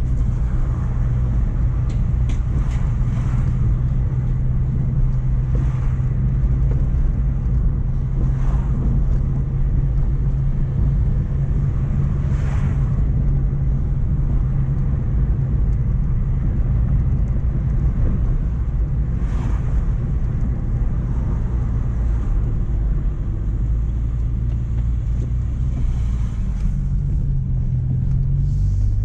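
Mk1 Renault Clio driving on the road: the engine runs at a steady note under constant road and tyre noise, with a few brief rushes of noise along the way. Near the end the engine note drops and then settles at a new pitch.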